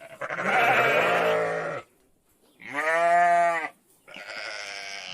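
Bleating livestock, sheep or goat type: three calls. The second, about three seconds in, is the loudest and clearest, and the third is fainter.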